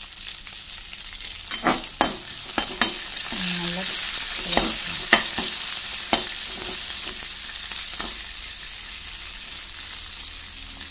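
Sliced onions, green chillies, curry leaves and dried red chillies sizzling in hot oil in a granite-coated kadai, stirred with a metal spatula that scrapes and taps against the pan several times. The sizzle grows louder a few seconds in.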